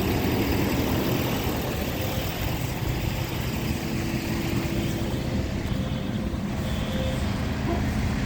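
Fire truck engine idling steadily: a continuous low rumble.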